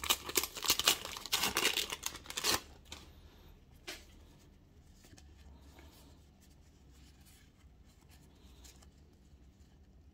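Paper sticker packet being torn open, its wrapper crackling and tearing in quick bursts for about two and a half seconds, followed by a single light tap about four seconds in.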